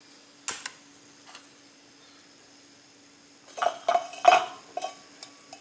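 Metal clicks and clinks from a folding stainless-steel camping gas stove being handled: two sharp clicks about half a second in, then a burst of ringing clinks about three and a half seconds in, with a faint steady hum underneath.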